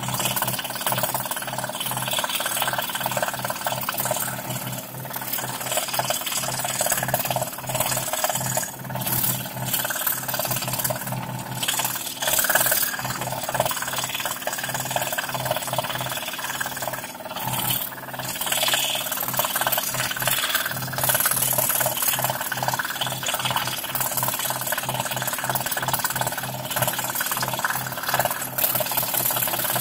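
Scroll saw running, its fine blade reciprocating and cutting intricate fretwork in thin plywood: a steady motor hum under a rasping cutting noise that swells and eases as the piece is fed and turned.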